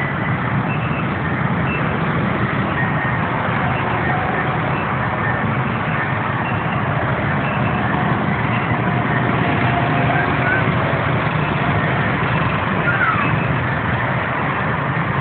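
Bumper boat's motor running steadily, heard from aboard the boat: an even low hum under a constant wash of noise.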